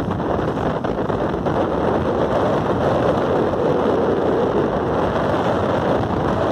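Steady rushing wind and road noise from a moving vehicle, with wind buffeting the microphone.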